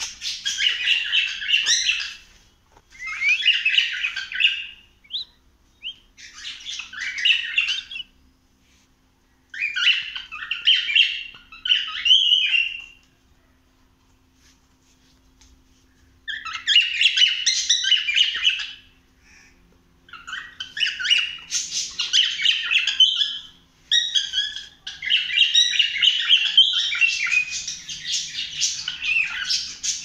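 Cockatiel chattering and warbling in runs of two or three seconds, with a pause of about three seconds near the middle and an almost unbroken run through the last third.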